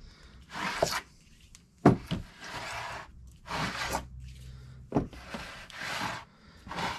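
Prismatic LiFePO4 battery cells being lifted, turned around and set back down one by one on a wooden workbench. There is a series of short sliding scrapes against the wood and the neighbouring cells, with a sharp knock about two seconds in and another about five seconds in as cells are put down.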